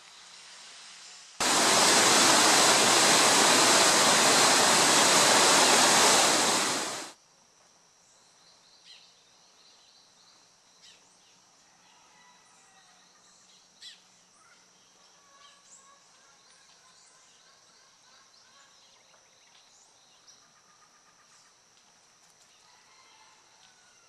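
A loud, steady rushing hiss starts suddenly about a second and a half in and cuts off after about five and a half seconds. It is followed by quiet forest ambience: a steady high thin drone and scattered short bird-like chirps.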